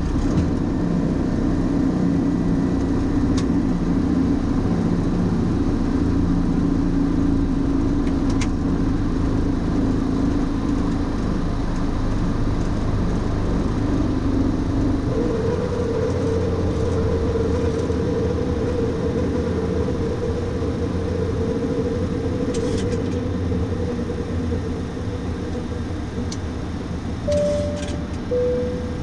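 Steady cockpit noise of a Boeing 737-800 during the takeoff roll, liftoff and initial climb: the CFM56 engines at takeoff thrust with airflow rumble. About halfway through, the low rumble gives way to a steadier, higher hum. Two short tones sound near the end.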